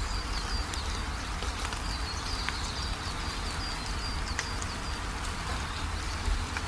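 Rapid, evenly repeated high chirps from a small animal, over a steady low rumble and hiss.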